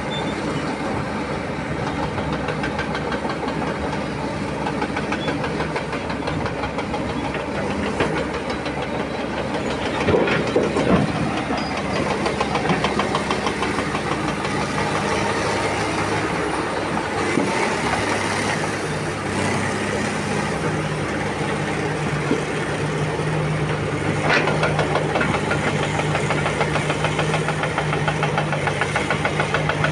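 Komatsu PC300 excavator's diesel engine running steadily with a fast, even knocking beat as it works. A louder burst of clatter comes about ten seconds in, and a single sharp knock around twenty-four seconds in.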